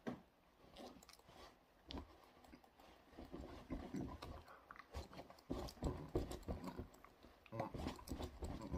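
Quiet mouth sounds from a signer: lip smacks, clicks and low murmurs, mixed with taps and rustles as his hands brush against his jacket.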